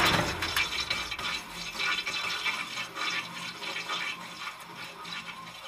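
Intro sound effect of crumbling rock and scattering debris: a crackling rush full of small clicks that starts loud and fades away.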